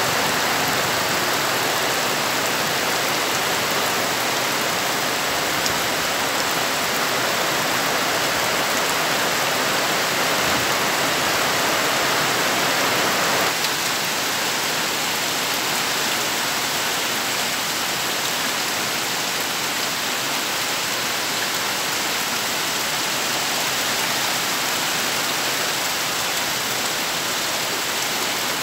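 Steady heavy rain falling on trees, leaves and wet ground, a continuous hiss. About halfway through the sound shifts abruptly and becomes a little duller.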